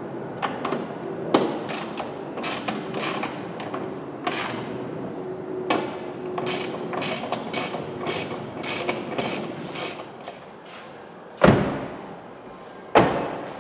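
A ratchet wrench clicking in short runs as the door bolts are tightened. Near the end, a 2016 Toyota Avensis door is shut firmly twice, about a second and a half apart.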